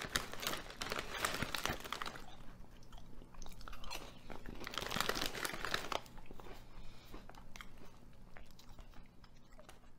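A person chewing crunchy potato chips close to the microphone: a dense run of crackling crunches, busiest through the first six seconds, then thinning out.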